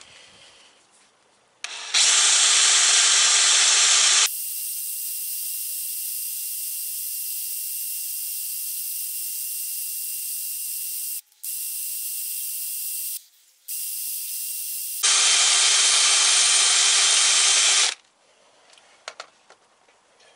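An 18-volt DeWalt cordless power tool runs steadily with a spinning attachment held against a steel socket, taking off the corrosion. It starts about two seconds in and stops about two seconds before the end. Through the long middle stretch only a thin, high hiss is heard, broken twice by brief pauses.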